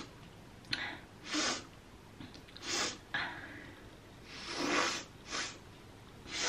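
A woman sniffing sharply through her nose about six times while dosing herself with a hay-fever nasal spray. Each sniff is a short, breathy rush of air.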